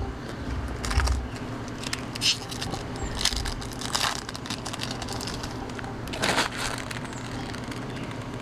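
Baseball trading cards being handled and flipped off a stack by hand: scattered soft rustles and flicks of card stock, with a few louder swishes spread through.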